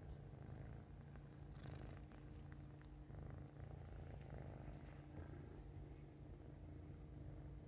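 A four-month-old kitten purring faintly, a steady low rumble.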